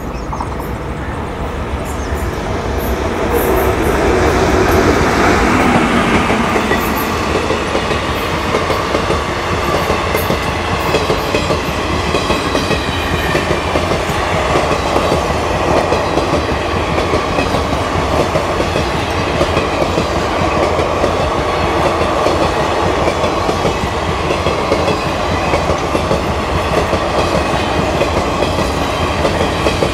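WAP5 electric locomotive hauling an express at speed: its whine swells and drops in pitch as it passes about five seconds in. A long rake of coaches and parcel vans then rushes past with a steady rolling rumble and rhythmic clickety-clack of wheels over rail joints.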